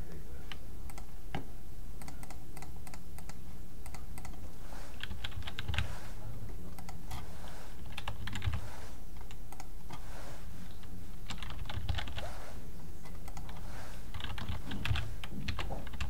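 Computer keyboard typing in short bursts with pauses between them, over a steady low background hum.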